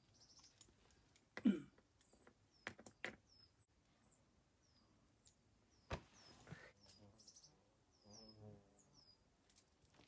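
A small bird repeating short, high chirps, one every half second or so, over quiet mountain air, with a few sharp knocks, like stones or gear clacking on rock.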